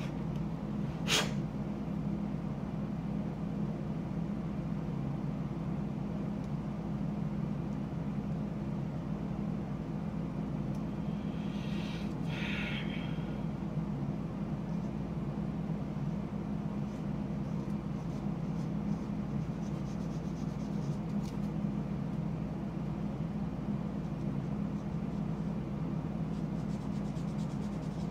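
Steady low hum, with a sharp click about a second in and a short scratchy scrape near the middle, as a small plastic model part is worked with a fingernail buffing stick and sanding block.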